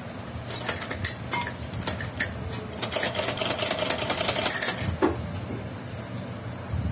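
Domestic straight-stitch sewing machine stitching: a few separate needle strokes, then a fast run of rapid, even clicking for a couple of seconds in the middle. A single knock follows about five seconds in.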